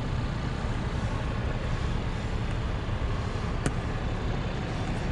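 Steady low rumble of an idling vehicle engine, with a single sharp click about three and a half seconds in.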